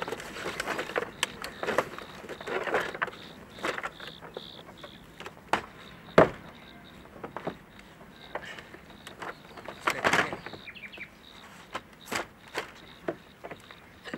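Irregular knocks, scrapes and rustles of people shifting about on a wooden plank roof and handling a rope. A single sharp knock about six seconds in is the loudest, with a run of scraping around ten seconds.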